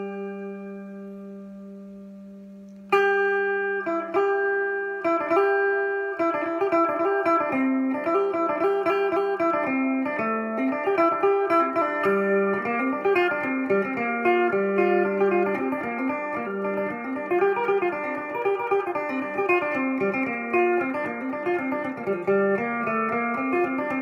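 Phin (Isan lute) being played: a held note rings and fades for the first few seconds, then plucked notes start, building into a fast melody over a recurring low drone note.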